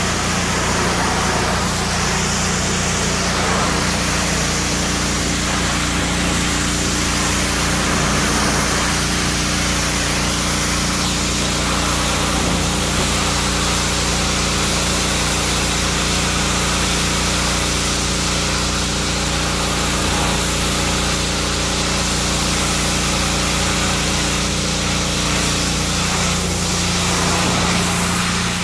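Pressure washer running steadily, its motor humming under the hiss of the high-pressure jet spraying onto the pickup's painted steel hood. The hum's note shifts a little near the end.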